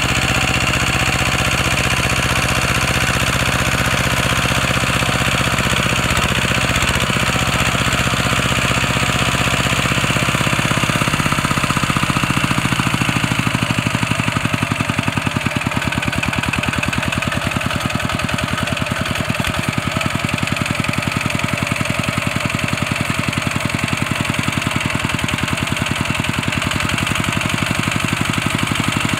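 Single-cylinder diesel engine of a Kubota two-wheel walking tractor running steadily with a chugging knock, its note shifting lower about eleven seconds in.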